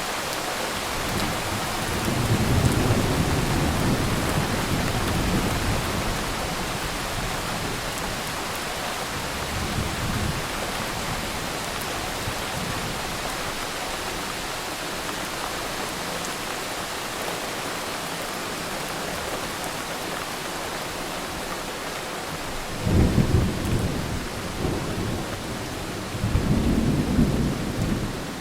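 Steady heavy rain with rolls of thunder: a long rumble from about two to six seconds in, a brief low one around ten seconds, and two louder cracking rumbles close together near the end.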